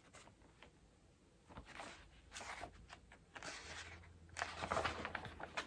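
Pages of a 1960s Analog magazine being leafed through: soft, scattered paper rustles and flicks, thicker and louder in the last second or so.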